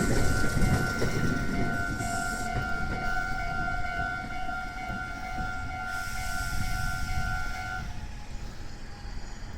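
Japanese level crossing warning bell ringing with a steady high tone while the passing train's rumble fades away. The bell stops about eight seconds in, leaving only the faint train.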